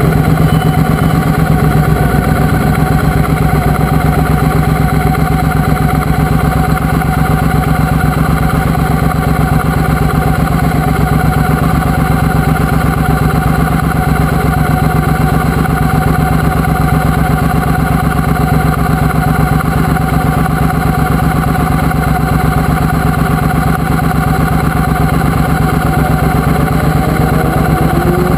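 Triumph Speedmaster motorcycle's parallel-twin engine idling steadily while the bike stands still.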